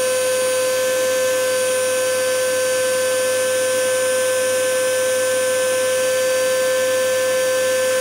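Vacuum cleaner running steadily: a constant motor whine over a hiss of rushing air.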